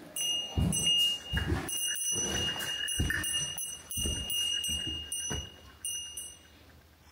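Footsteps crunching and thudding across a debris-strewn wooden gym floor, about nine steps, over a steady high thin tone with short higher beeping tones switching on and off; all stop about six and a half seconds in.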